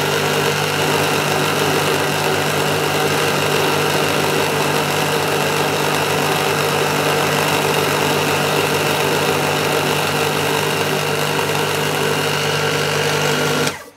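Benchtop mini milling machine running steadily, its end mill taking a light cut along the edge of a mahogany gunstock blank. The machine noise stops abruptly near the end.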